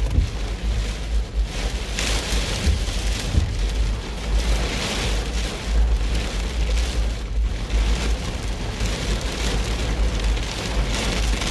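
Heavy hurricane rain drumming on a moving car, over a steady low rumble; the hiss of the rain swells and eases every few seconds.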